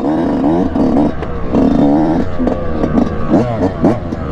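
Yamaha YZ125 two-stroke dirt bike engine revving as the bike is ridden, its pitch climbing and dropping again and again with throttle and gear changes.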